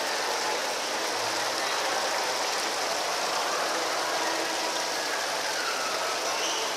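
Water from a small rock-wall fountain spilling down its stone cascades and splashing into the pool below: a steady, even rushing splash.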